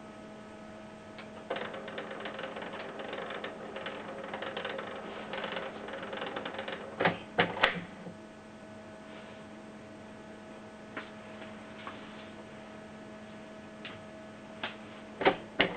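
Canon Pixma MG2470 inkjet printer's mechanism rattling and clicking rapidly for about five seconds, then a few sharp clicks, over a steady electrical hum.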